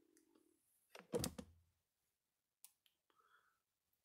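Gallagher M600 electric fence energizer firing, heard as faint sharp ticks about every second and a half while it pulses into an analog fence voltmeter. A louder short thump comes about a second in.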